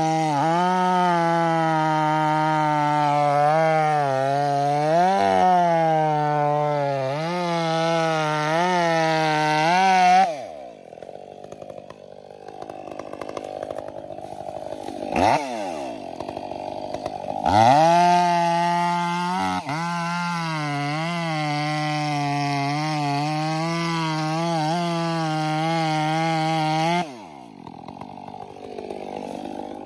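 Stihl MS 500i fuel-injected two-stroke chainsaw with a 25-inch bar cutting through a tree trunk at full throttle, its pitch dipping and recovering under load. About ten seconds in it drops to idle and blips once, then revs up and cuts again for about ten seconds before dropping back to idle near the end.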